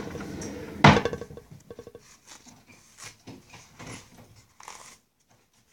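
Toilet paper roll being handled and unrolled: a sharp knock about a second in, then a quick run of crackles and scattered light rustles of paper.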